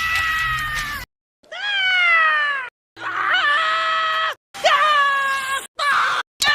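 Scrat, the cartoon sabre-toothed squirrel, screaming in a quick series of separate high-pitched cartoon screams cut back to back with brief dead-silent gaps. The first scream is held and ends about a second in, the next ones slide down in pitch, and the last few are short.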